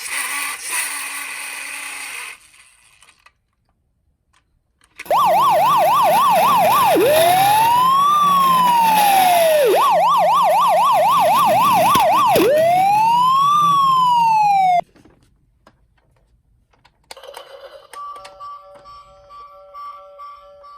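Electronic police-style siren alternating a fast warbling yelp with a slow rising-and-falling wail, loud for about ten seconds, then cutting off suddenly. Near the end a short electronic tune of steady beeping tones starts.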